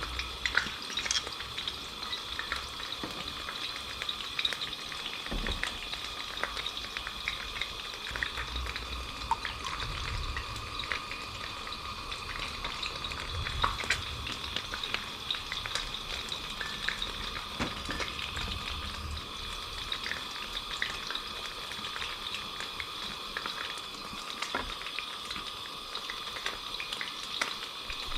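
Small moroko fish deep-frying in hot oil in a skillet: a steady sizzle dotted with many small crackles and pops.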